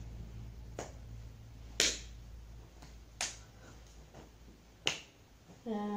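Four sharp finger snaps at uneven intervals of about one to one and a half seconds. Near the end a voice begins humming a steady low note.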